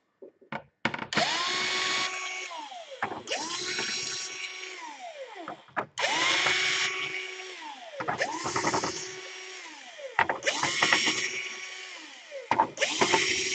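Electric screwdriver backing out laptop case screws: about six short runs of a motor whine, each holding pitch and then winding down with a falling tone, with small clicks between runs.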